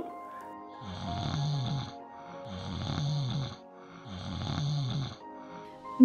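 A person snoring: three long snores about a second and a half apart, each a low rattling tone that falls in pitch, over background music.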